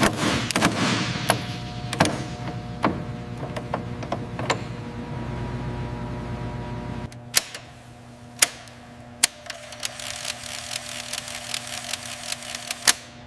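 Scattered sharp mechanical clicks and metal knocks from workshop tools and fittings over a steady machine hum. The hum stops about seven seconds in, and fewer, sharper clicks carry on.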